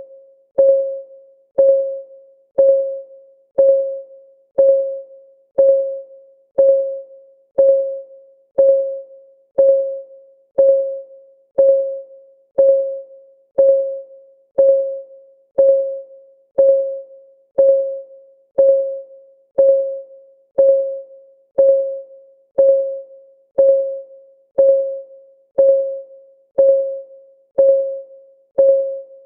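Clock-ticking sound of a countdown timer: a short, pitched tick about once a second, each dying away quickly, keeping a perfectly even beat.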